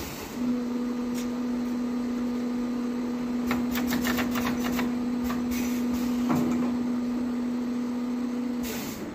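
Multi-head explosion-proof bottle filling machine running a filling cycle on alcohol. A steady hum runs while the bottles fill, with a cluster of clicks in the middle and another a little later. The hum stops shortly before the end, followed by a short hiss as the fill finishes.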